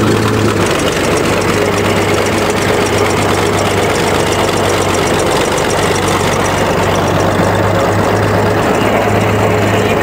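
Old crawler bulldozer's engine running loud and steady close up, its note shifting slightly about half a second in.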